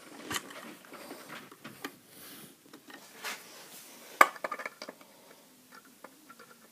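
Scattered light clicks and metal clinks of hand tools (screwdriver, then pliers) working the corroded screws and metal fittings of a wooden ladder side. One sharp clink comes about four seconds in, followed by a quick run of small ticks.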